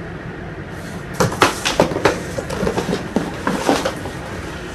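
Packaging being handled in a cardboard box: a quick run of irregular crinkles, rustles and light knocks of plastic and paper being pulled about, starting about a second in and dying down near the end.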